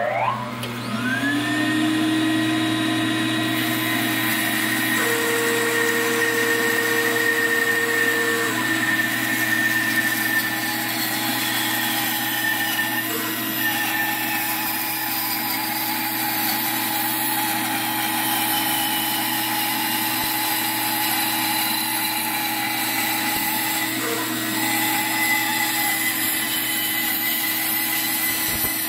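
Bandsaw motor coming up to speed, its pitch rising over about the first second, then running steadily while the blade cuts around a wooden bowl blank turned on a circle-cutting jig.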